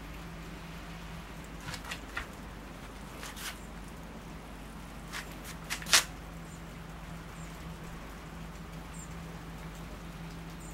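A steady low hum with a few light clicks and taps scattered through it, the sharpest about six seconds in.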